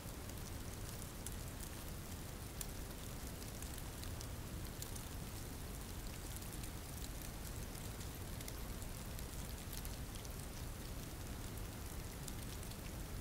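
Steady rain falling, with a fine patter of individual drops.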